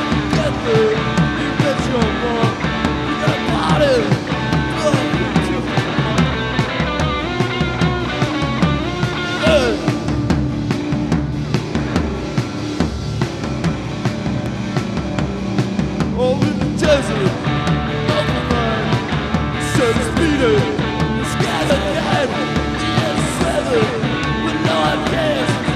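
Live rock band playing: electric guitar with many sliding, bending notes over bass and drums.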